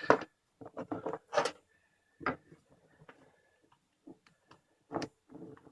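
Light, irregular clicks and taps of a USB charger plug and a micro-USB adapter being handled and pushed together, a poorly fitting connector that won't seat properly.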